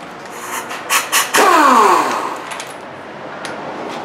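Pneumatic impact wrench given a short burst of air, whining down in pitch as its motor winds down. It is preceded by a couple of sharp clicks.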